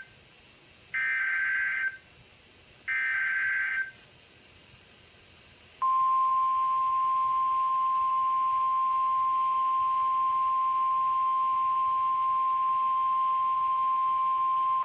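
Emergency Alert System SAME header: two one-second bursts of raspy, warbling digital data a second apart, the end of the three-burst header. About two seconds later the NOAA Weather Radio 1050 Hz warning alarm tone starts, one steady high tone held for about nine seconds. Together they announce a new severe thunderstorm warning.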